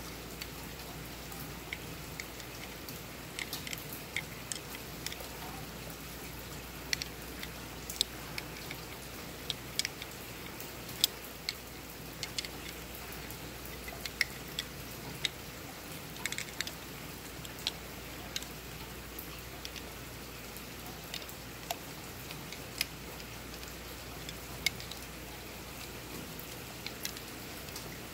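Scattered light clicks and taps of a metal brake proportioning valve and its bracket being handled and turned over in the hands. Some of the clicks come close together in small clusters.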